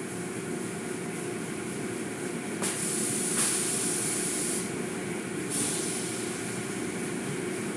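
Automatic tunnel car wash running: a steady machinery hum with water spray hissing in loudly about two and a half seconds in for around two seconds, then again briefly a second later.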